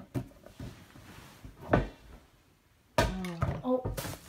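A large ball bouncing and thudding off the floor and furniture: a few knocks, a loud one a little under two seconds in and a heavier one at about three seconds.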